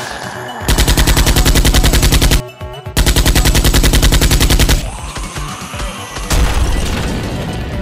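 Machine-gun sound effect dubbed over a toy blaster: two rapid automatic bursts, each just under two seconds long, with a short gap between. About six seconds in, a sudden loud hit fades slowly away, with music underneath.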